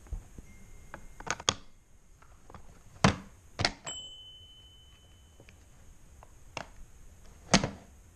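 Sharp plastic clicks and knocks from a battery-powered toy being handled, several in turn. About four seconds in, a steady high electronic tone starts and holds: the toy's ding.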